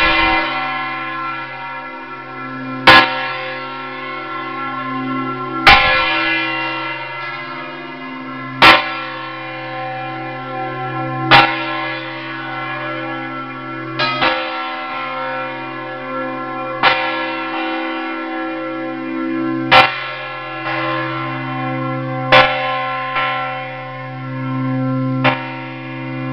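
Church bells swung full circle in the Valencian volteig style, heard close up in the belfry. One bell strikes loudly about every three seconds, with fainter strikes from other bells in between, over the long ringing hum of all the bells.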